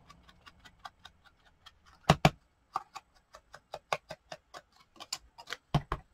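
Rapid light clicking and tapping from hands handling small paper craft pieces on a cutting mat, with two pairs of louder knocks, about two seconds in and near the end, as things are set down.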